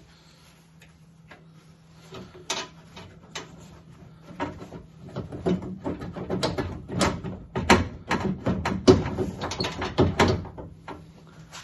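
Rattling, clicking and clunking of metal and glass parts inside a 1967 Mustang door as the door glass is worked by hand, a dense run of knocks starting about two seconds in, busiest in the second half, and stopping near the end.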